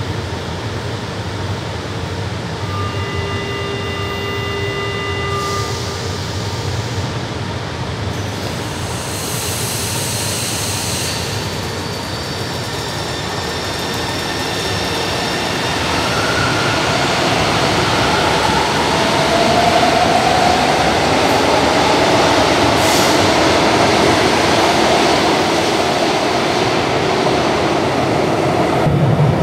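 São Paulo Metro trains at an underground platform. A steady electronic tone sounds for about three seconds, a hiss of air follows a few seconds later, then the rumble and motor whine of a train moving along the platform grow louder about halfway through and stay loud.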